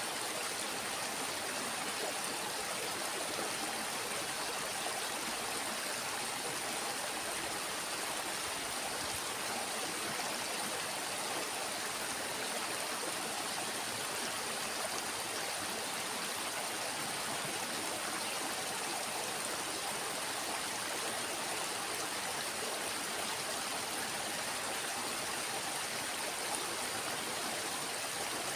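Small stream water flowing steadily, an even rushing sound.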